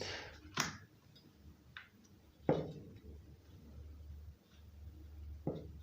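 Light knocks and clicks of small chainsaw parts being handled and fitted during reassembly, three separate knocks, the middle one loudest, over a faint low hum.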